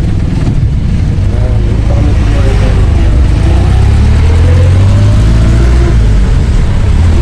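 Passenger jeepney's engine running under way, a heavy low rumble heard from inside the open cabin. It grows louder about two seconds in as the jeepney picks up speed.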